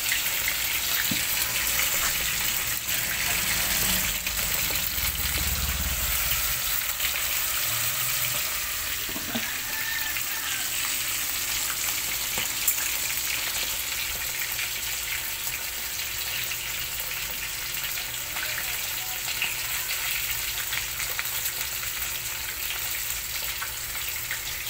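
Whole tilapia deep-frying in a wok of bubbling oil: a steady crackling sizzle.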